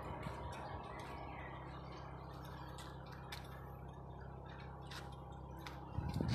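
Beninca Bull8 sliding-gate gearmotor running with a steady low electric hum as it drives the gate, with faint bird chirps over it. A single thump comes near the end.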